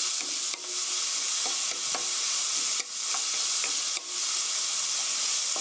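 Diced onion, garlic and carrot sizzling in hot grapeseed oil in a stainless steel pan while being stirred with a wooden spatula. The sizzle is steady, dropping briefly a few times as the vegetables are turned.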